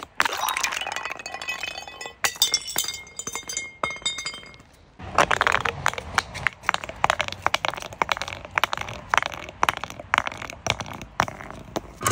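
Glass clinking, with a ringing note held for a couple of seconds, then from about five seconds in a dense run of sharp cracks and crunching as something brittle is crushed.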